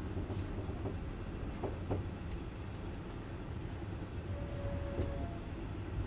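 Passenger train running on the rails, heard from inside the carriage: a steady low rumble with scattered light clicks and knocks. A short, faint, steady squeal comes in about four seconds in and lasts about a second.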